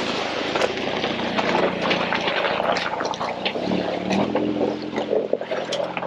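Jeep engine running at low revs with many rattles, clicks and knocks from the vehicle working over rough trail; the engine note rises briefly about four seconds in.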